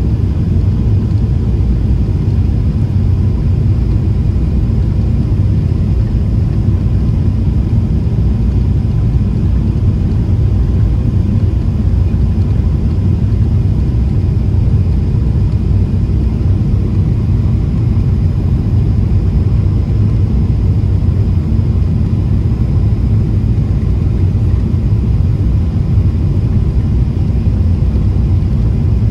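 Steady low rumble inside the economy cabin of a Boeing 777-300ER in flight: the drone of its GE90 engines and the airflow over the fuselage, with a faint steady hum above it.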